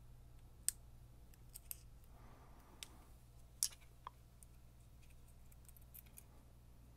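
Faint, sharp metallic clicks as a tensioned retaining clip is worked off a baitcasting reel: a handful of scattered ticks, the loudest two shortly after the start and about midway.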